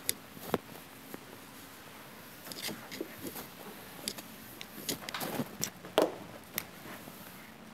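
Whiteboard eraser rubbing across the board in short scratchy strokes, with scattered light knocks, then a sharp clack about six seconds in as the eraser is put down on the board's ledge.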